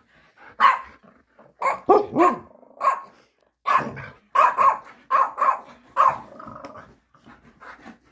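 Alaskan malamute vocalizing excitedly: a rapid string of short barks and growly woofs, dying down to quieter sounds near the end.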